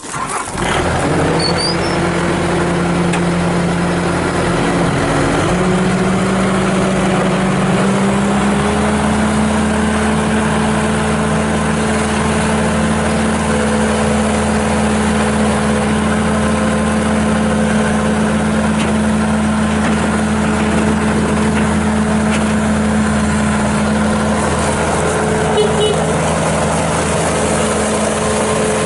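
Bobcat S650 skid steer's Kubota V3307 four-cylinder turbo diesel starting and running steadily. Its speed steps up a few seconds in and again after about eight seconds, then holds.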